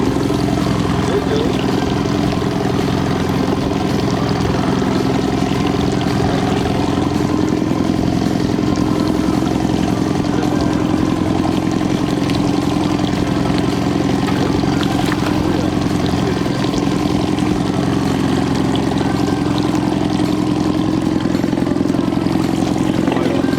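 Boat engine running steadily at slow trolling speed, a constant low drone whose pitch wavers slightly.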